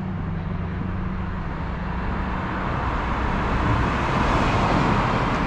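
A road vehicle approaching: a steady low engine hum, then tyre noise that grows louder through the second half.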